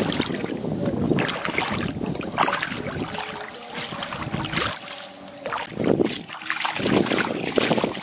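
Bare feet splashing through shallow running water, in uneven steps, with a quieter pause a little past the middle.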